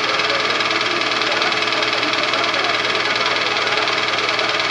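Toyota Vitz's 2SZ 1.3-litre engine running with a fast, even knocking, a knock that a Dimexide decarbonising flush has not cured.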